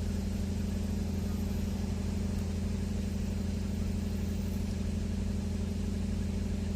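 A steady low engine-like hum, like a motor idling, with no change in pitch or loudness.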